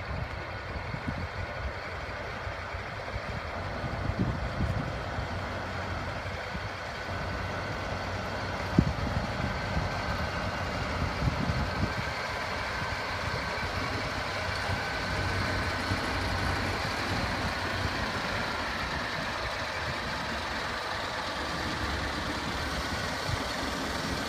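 Heavy-haulage MAN 8x4 tractor unit's diesel engine running steadily as it slowly pulls a heavily loaded multi-axle trailer past, with tyre and road noise. A single sharp knock about nine seconds in.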